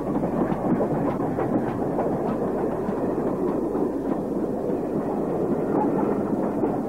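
Steam train running past on the rails, a steady rush of noise with wheels clattering over the rail joints.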